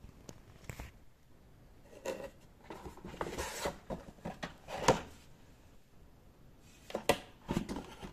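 Handling noise as a satellite receiver is moved about in its cardboard box: scattered scrapes, taps and rustles in three short clusters, with the loudest knock about five seconds in.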